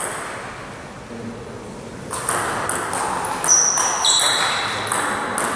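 Table tennis rally: the ball clicking off paddles and the table in quick succession from about two seconds in, with a couple of brief high squeaks.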